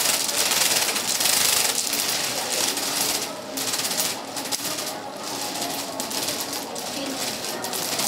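Rapid, irregular clicking and clattering of small hard objects, with faint voices behind.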